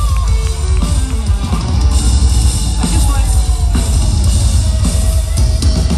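Live rock band playing loudly, with a full drum kit to the fore over electric guitars and bass guitar.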